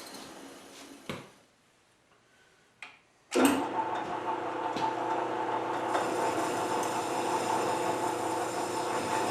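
A machine tool's motor runs down and stops, with a click, then a short near-silent pause with another click. About three and a half seconds in it starts again with a sudden jolt and runs steadily with a constant hum and whine.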